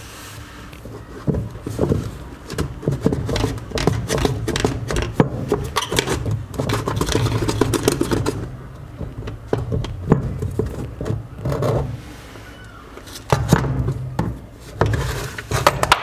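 Plastic washing-machine pulsator being pulled off its shaft in the tub by hand: irregular scraping, knocking and rattling of plastic, which stops briefly about three-quarters of the way through.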